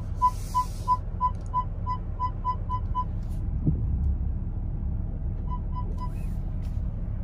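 Mercedes GLS parking-sensor warning beeping, short even beeps about three a second that stop about three seconds in, then three more near the end: the sensors warning of a close obstacle while the SUV is parked. A steady low cabin rumble from the slowly moving car runs underneath.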